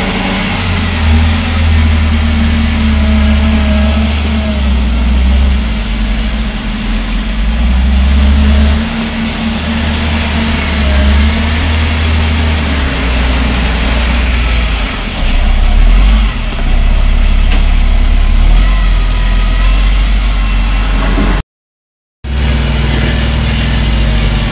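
Volvo L70F wheel loader's six-cylinder diesel engine running and revving up and down as the loader manoeuvres and pushes into a gravel pile. The sound cuts out completely for under a second near the end.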